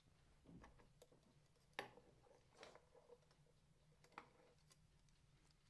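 Near silence, with a handful of faint, scattered clicks and light knocks of kitchen utensils and containers being handled while measuring baking ingredients.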